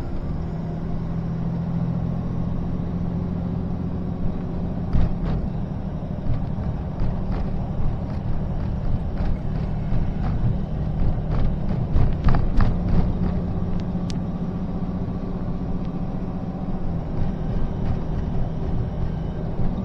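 Diesel engine of a Mack five-ton truck running steadily at highway speed, heard from inside the cab as a low drone with road noise. Scattered sharp knocks sound through the middle.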